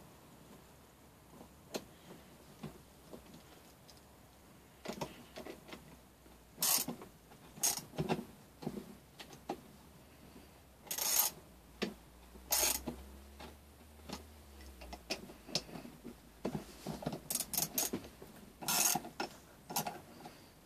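Hand tools and metal parts of a small 3 hp engine clicking and rasping in irregular short bursts during reassembly, with a run of quick clicks near the end.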